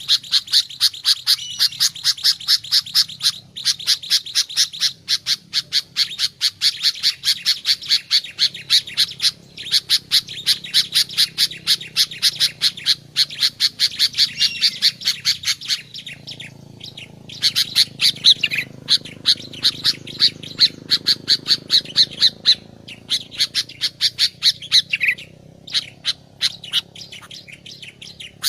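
Sooty-headed bulbul (kutilang) calling in a fast, steady run of harsh chattering notes, about five a second. The run breaks off briefly a few times, and a short slurred whistle now and then cuts across it.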